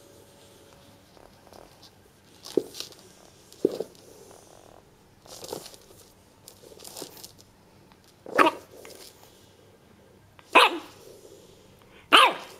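French bulldog puppy giving short, sharp play barks, one every second or two, with a few softer sounds in between; the loudest barks come in the second half.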